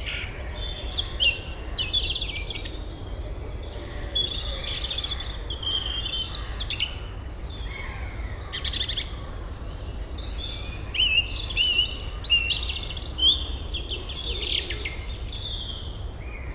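Several birds singing and chirping together in overlapping warbling phrases, over a steady low background rumble.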